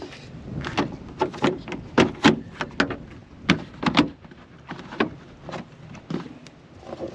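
Irregular plastic clicks and knocks as a bulb socket is worked into place in a car's taillight assembly.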